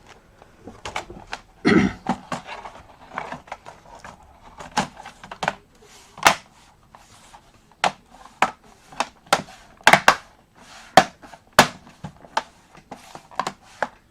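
Irregular clicks and knocks of plastic laptop casing and parts being handled and pressed into place, some sharp and loud.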